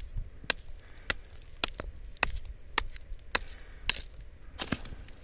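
Rock hammer striking a rock, about nine sharp strikes at a steady rate of roughly two a second, breaking into pumice.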